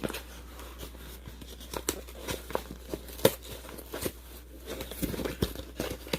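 Shipping package being torn open by hand: irregular crinkling, tearing and sharp crackles of the packaging, with a louder snap about three seconds in and a busier stretch of rustling near the end.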